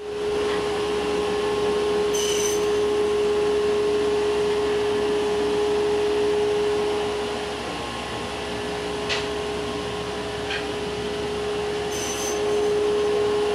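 Steady machine drone: a constant hum with hiss over it, dipping slightly midway, with a couple of faint clicks around nine and ten and a half seconds in.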